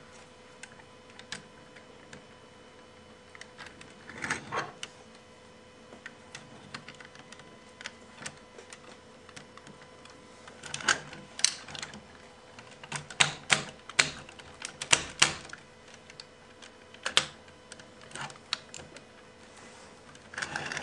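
Clicks and snaps of a transforming robot toy's parts being moved and locked into place by hand, in scattered bursts that come thickest about halfway through.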